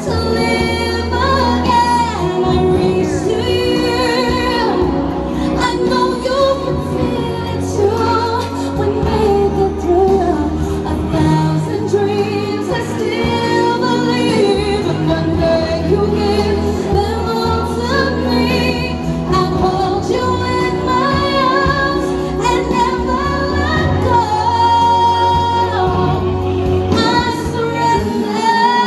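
A woman singing into a handheld microphone over backing music.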